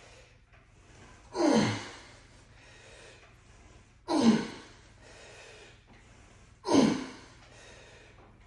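A man breathing out hard with the effort of each cable-exercise rep: three sharp, loud exhales about two and a half seconds apart, each dropping in pitch, with quieter breaths in between.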